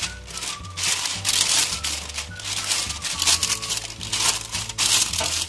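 A sheet of baking paper rustling and crinkling in a run of short swishes as a gloved hand smooths it flat, over quiet background music.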